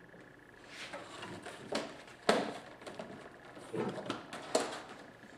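Handling noise on a tabletop: a clear plastic clamshell package and small plastic bottles being picked up and set down. It comes as a series of sharp clicks, knocks and rustles, the loudest a little after two seconds in.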